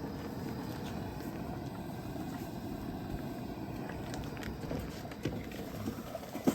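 Coleman propane camp stove burner running: a steady, low rushing flame noise with a few faint ticks.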